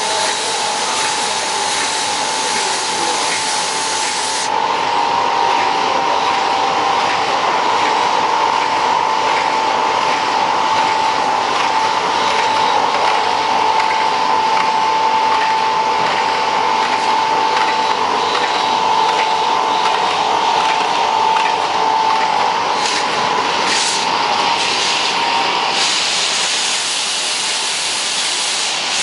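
NJP-400 automatic capsule filling machine running in production: a steady hiss with a constant high whine over it.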